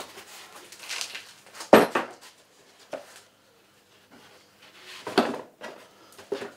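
Handling of a cardboard box and the metal milling attachment it holds: a few rustles and knocks, the sharpest about two seconds in and another about five seconds in, as parts are lifted out and set down.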